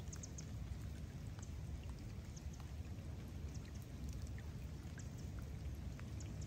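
Steady rain falling on a lake's surface, with scattered single drops ticking sharply over the even hiss.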